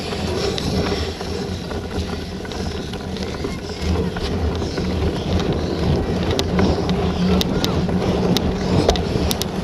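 A bicycle ridden at race pace over grass and a wet paved path, heard from a camera mounted on the bike or rider: tyres rolling and rumbling with wind buffeting the microphone. A few sharp ticks of the bike's drivetrain or of grit striking the frame come through, more of them in the second half.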